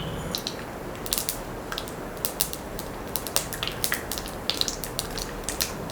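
Mustard seeds popping in hot sesame oil as they are tempered: irregular sharp pops, several a second, over a low sizzle.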